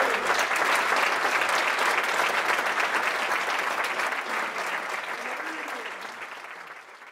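Audience applauding, a dense steady clapping that thins and fades out over the last couple of seconds.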